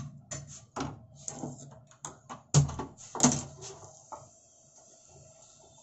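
Metal spoon knocking and scraping against a frying pan as thick gravy is stirred: a run of clinks and taps, the two loudest a little over halfway through, over a steady low hum.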